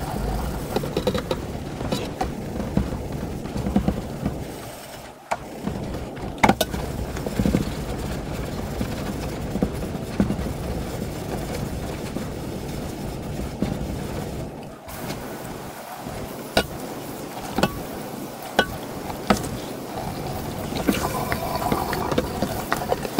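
Brush scrubbing rust and old seasoning off a lye-soaked cast iron skillet in a tub of water: steady rough scrubbing and sloshing, with sharp knocks of the iron pan against the tub now and then. Near the end, tap water runs into the sink.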